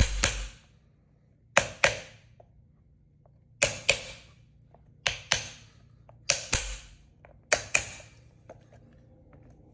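Hammer striking a block of wood held against the edge of a solid e-scooter tire, knocking out the wheel's rim ring. Sharp knocks with a short ring, mostly in quick pairs, repeated every second and a half to two seconds.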